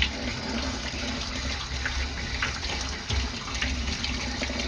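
Tap water pouring steadily from a micro-bubble faucet attachment onto a dish being rinsed by hand, with a few light clicks.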